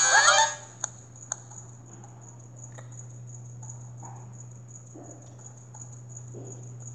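A brief cartoon voice and music sound cuts off about half a second in, then two sharp clicks. After that comes quiet room tone with a steady low electrical hum and a faint high whine, broken by a few soft rustles.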